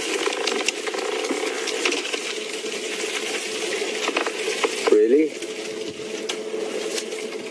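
An elephant breaking and pulling at a buffalo thorn tree: a dense crackling and snapping of twigs and leaves. About five seconds in there is a brief wavering tone, and after it the crackling thins out.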